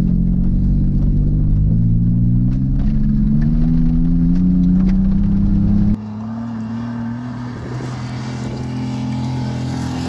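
Pontiac Bonneville race car's engine running hard under acceleration, its pitch climbing slowly for about six seconds. Then a sudden change to a quieter, steadier engine note.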